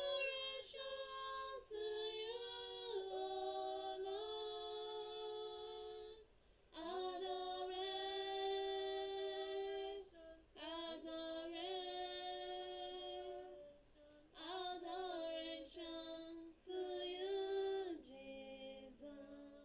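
A woman singing unaccompanied, in long held notes grouped into phrases with short breaths between them.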